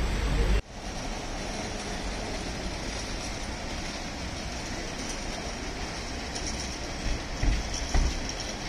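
Steady outdoor background noise, changing abruptly at a cut about half a second in, with a few faint knocks near the end.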